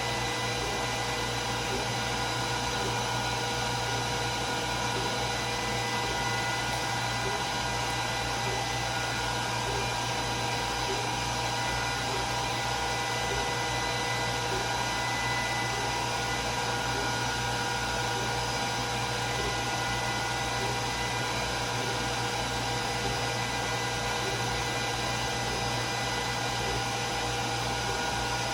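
Glowforge Plus laser cutter running partway through a cut: its fans whir steadily, with several steady tones over an even rush of air.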